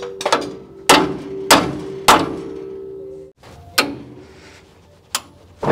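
Sharp metal strikes on a steel front coil spring, tapping it round so its last coil drops into the groove in the lower control arm. Four blows about half a second apart, each followed by a ringing note from the spring, which cuts off suddenly; then two lighter taps.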